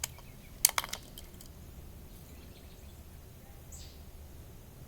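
A quick cluster of sharp clicks or taps about half a second in, with a few fainter ones after it, over a faint low steady background noise.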